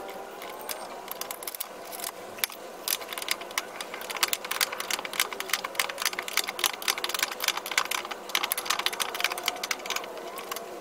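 An 18 mm wrench working a rear brake caliper bracket bolt loose, with a long run of rapid metallic clicks and ticks.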